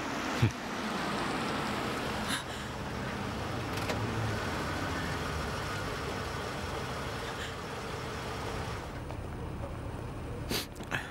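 A car driving slowly up with its engine running, a steady rumble that eases off about nine seconds in as it comes to a stop. A couple of sharp clicks near the end.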